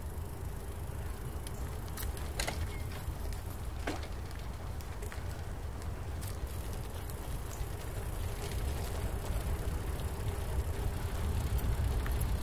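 Bicycle ride heard from the bike's camera: a steady low rumble of wind and tyres, with a few sharp clicks about two and four seconds in.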